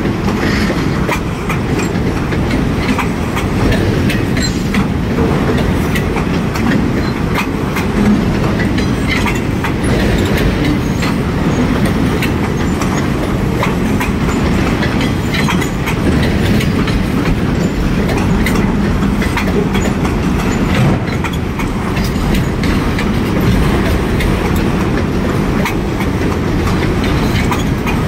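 Freight train of enclosed autorack cars rolling past: a steady loud rumble of steel wheels on the rails, with frequent clicks and clacks of the wheels.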